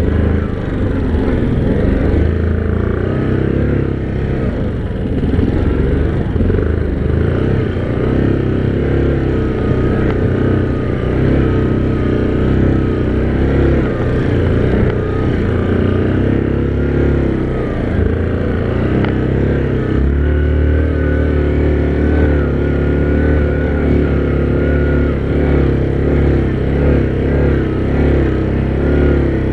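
ATV engine running under way, its pitch wandering up and down with the throttle. The low drone grows stronger about twenty seconds in.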